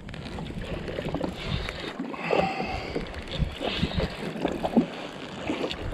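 Sea water lapping and splashing against the hull of a jet ski sitting on the water, broken by several short knocks and splashes.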